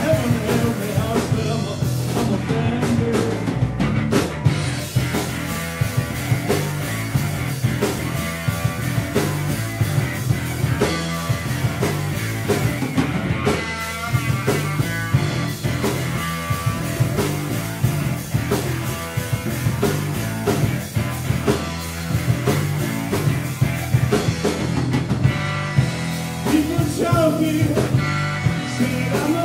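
Live rock band playing loud, with electric guitar and a steady drum beat. A male voice sings near the start and again near the end, with an instrumental stretch between.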